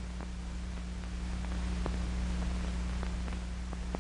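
Steady hum and hiss of an old film soundtrack, with a few faint scattered clicks of crackle.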